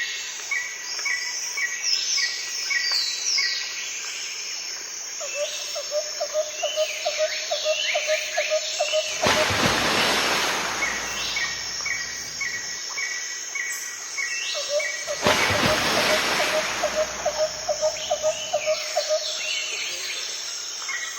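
Garden birds calling: repeated short chirps about three a second, falling whistled notes, and twice a rapid run of lower notes. A steady high insect-like hum runs underneath, and two stretches of rushing noise, about a third and about three-quarters of the way in, are the loudest parts.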